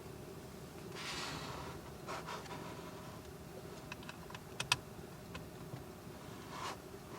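Rustling and a handful of light, sharp clicks from small objects being handled, over a faint steady hum.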